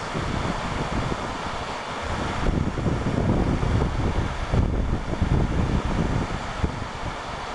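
Wind buffeting the microphone in uneven gusts over a steady rushing hiss, the gusts heavier through the middle.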